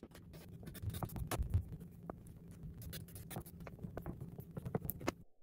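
Drawing sticks scratching on paper, charcoal and then a coloured stick, in quick irregular strokes with many small ticks and taps against the paper and tabletop.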